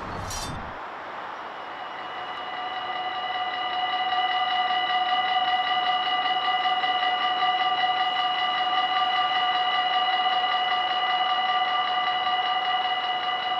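Dutch level-crossing warning bell ringing continuously, a steady electronic ringing that starts about a second in and grows louder over the next few seconds.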